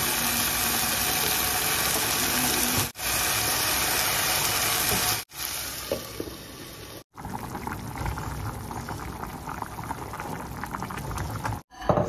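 Chopped vegetables (capsicum, carrot, tomato) frying in a pot on a gas stove, giving a loud steady sizzling hiss. A little after five seconds it drops away, a lid goes on the pot, and the covered pot then crackles and bubbles more softly.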